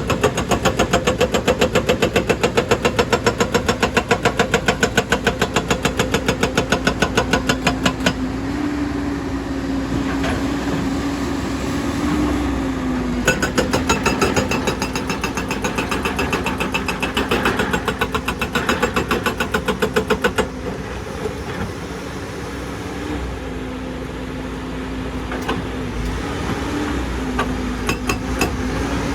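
JCB excavator's hydraulic rock breaker pounding rock in rapid, even strokes, about ten a second, in two long spells, with a pause of several seconds between them. The diesel engine runs underneath, rising in pitch during the pause, and runs on alone after the second spell stops.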